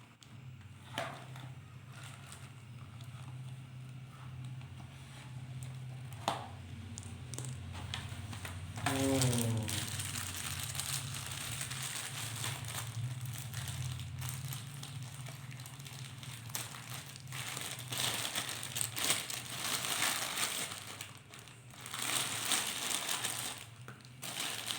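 Plastic packaging crinkling and rustling as it is handled, with a few clicks early on and busier crinkling from about a third of the way in, over a steady low hum.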